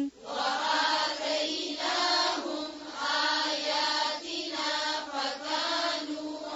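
A group of learners reciting a Quran verse together in slow, drawn-out tajweed chant, repeating the phrase the teacher has just recited.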